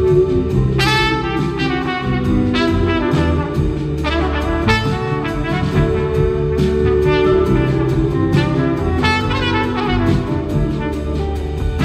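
Trumpet solo over a full live band, the trumpet playing a run of quick separate phrases above a steady bass and drum backing.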